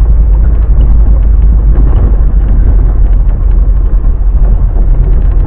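Steady low engine and road rumble inside an off-road vehicle's cabin as it drives slowly over a dirt and gravel track, with faint scattered knocks.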